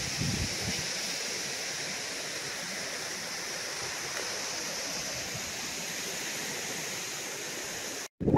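Steady rushing wind-and-water noise, with a few low wind buffets on the microphone in the first second; it cuts off abruptly near the end.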